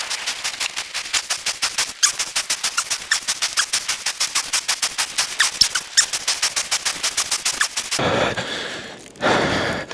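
Fast, even clicking, about six clicks a second, from a Sur Ron electric dirt bike being pushed by hand with its drive chain snapped. The clicking stops about eight seconds in and gives way to a soft hiss.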